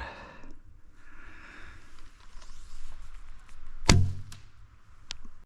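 A recurve bow being shot: one sharp, loud thump about four seconds in, then a lighter click about a second later.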